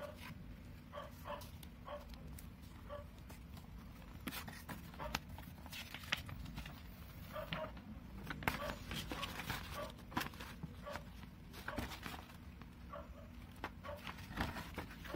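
Cardboard album box and paper inserts handled on bubble wrap: rustling, sliding and light taps over a steady low hum. Short, repeated high yelps sound in the background.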